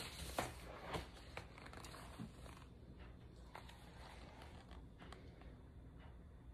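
Paper rustling and light knocks as the pages of a large hardcover picture book are turned and the book is lifted and handled, the sounds thinning out after the first couple of seconds.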